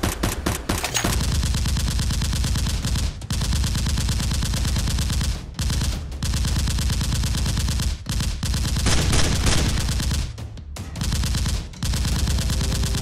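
Rapid automatic-gunfire sound effect, like machine-gun fire, dubbed over the toy blasters. It comes in long fast bursts broken by several short pauses.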